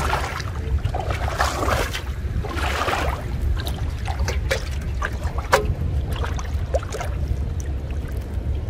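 Shallow water splashing and trickling as a fish net is handled and fish are picked out of it, with small drips and clicks scattered through, over a steady low rumble of wind on the microphone.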